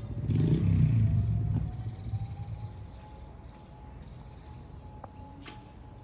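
Federal Signal Modulator 4016 siren sounding an emergency call, faint, its tone rising slowly and then holding steady from about two and a half seconds in. A passing vehicle's engine rumbles loudly over it in the first two seconds, and there is a short click near the end.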